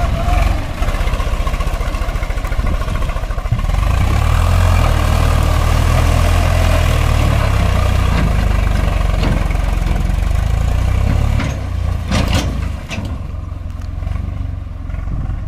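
Swaraj 855 FE tractor's three-cylinder diesel engine working hard under load, pulling a loaded trolley through deep mud. The engine note strengthens about four seconds in, holds steady, then eases off near the end, with a few sharp knocks as it does.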